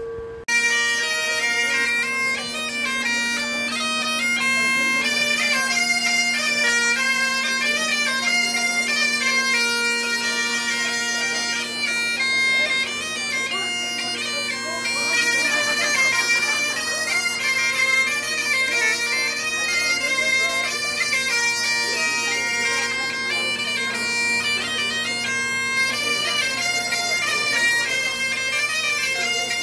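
Bagpipes playing a tune over their steady drones; the music starts abruptly about half a second in and goes on without a break.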